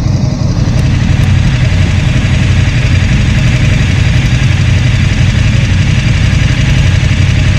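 Motorcycle engine running steadily, with a low hum and a hiss that grows louder about a second in.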